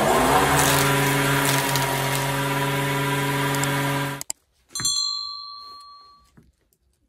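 Jointer running and planing the sawn face of a log slice: a loud, steady machine hum under the noise of the cut, which stops abruptly about four seconds in. About half a second later a single bright metallic ding rings out and fades over about a second.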